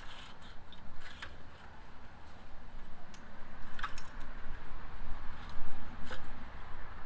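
Scattered light clicks and taps from parts of a Pentair Great White pool cleaner being handled and fitted during its rebuild, about five in all, over a low steady rumble.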